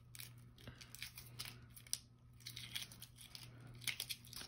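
Shell of a hard-boiled egg being peeled by hand: faint, irregular crackling with small clicks as bits of shell break away.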